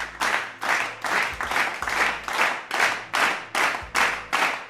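Steady rhythmic handclapping, about three claps a second.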